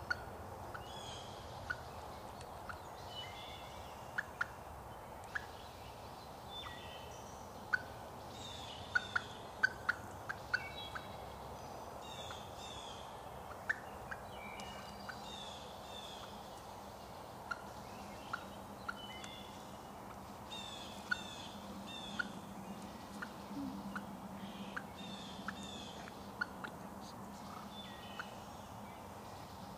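Wild hen turkey clucking, with short sharp notes scattered irregularly and several coming in quick runs, over songbirds singing in the woods.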